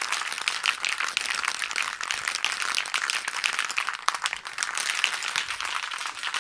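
Rust-Oleum Turbo spray paint cans being shaken hard, their mixing balls rattling in a fast, steady clatter to mix the paint before spraying.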